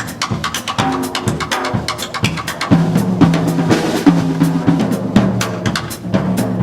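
Jazz big band drum kit playing a busy swing passage of rapid snare and bass drum strokes; about three seconds in, low held notes from the band come in under the drumming.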